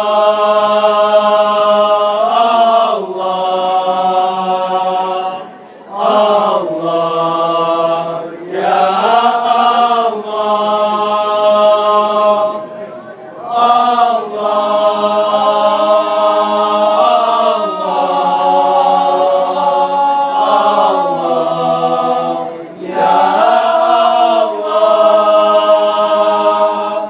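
A group of voices chanting in unison without instruments, in long drawn-out melodic phrases broken by short pauses for breath.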